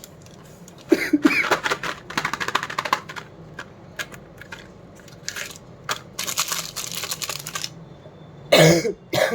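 Plastic candy packaging crinkling and crackling in two long bursts of handling, then a short loud cough-like vocal sound near the end.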